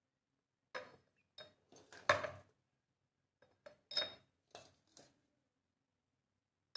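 Steel spoon scraping and clinking against a stainless steel pot while scooping ground spice powder: a string of short, separate clinks and scrapes, some with a light metallic ring, the loudest about two seconds in, then a pause near the end.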